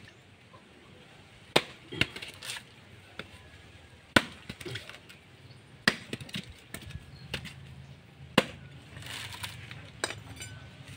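Bolo knife chopping into the hard shell of a husked mature coconut to split it open for copra. There are sharp, irregular whacks a second or two apart, about five of them loud, with a short rustle of handling near the end.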